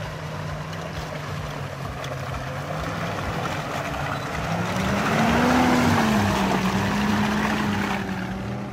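A 4x4 off-road vehicle's engine pulling under load. Its pitch rises about halfway through and then settles, under a rushing noise that swells at the same time.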